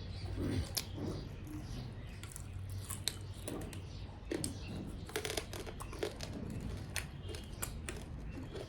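Close eating sounds: chewing and crunching fried chicken, with many short, sharp clicks and crackles over a low steady hum.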